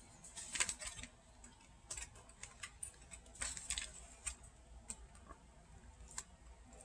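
Faint, irregular small clicks and crackles of hands handling plastic and food, with a denser crinkling cluster about half a second in and again around three and a half seconds.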